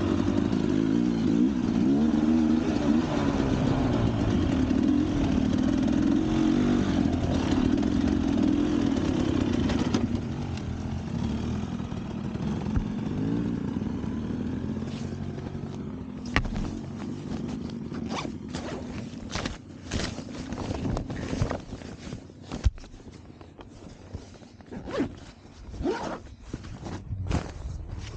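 Motorcycle engine running with its revs wavering up and down; about ten seconds in it drops away. In the second half come scattered sharp knocks and scrapes.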